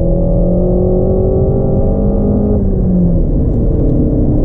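Renault Mégane RS Trophy engine pulling hard under acceleration, its pitch climbing steadily. About two and a half seconds in it drops at a gear change and keeps running at a lower pitch.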